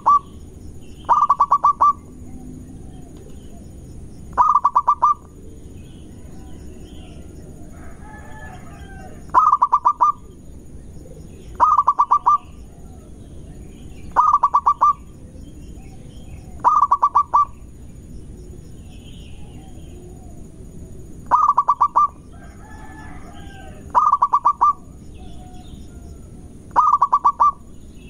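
Zebra dove (perkutut) singing: a short phrase of rapid cooing notes, repeated nine times with gaps of a few seconds between phrases.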